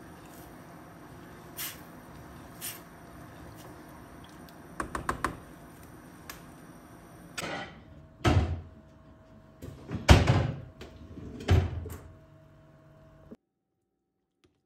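Kitchen utensils knocking against a stainless steel soup pot: a few faint clicks, then several louder knocks about one to two seconds apart past the middle. The sound cuts off abruptly near the end.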